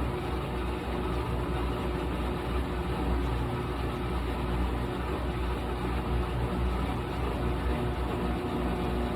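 GE top-load washing machine running mid-cycle: a steady motor hum with a low rumble that holds even throughout.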